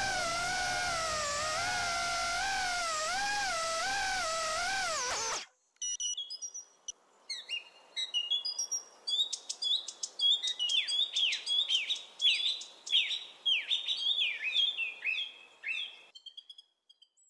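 A wavering electronic music tone stops abruptly about five seconds in. After a short silence, birdsong follows: a run of whistled chirps, many sliding down in pitch, with a few clicks at first.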